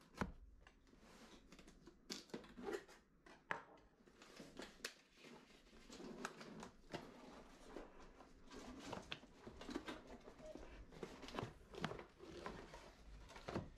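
A cardboard box being slit open by hand and its flaps pulled back: faint scattered scrapes, rustles and light taps of cardboard.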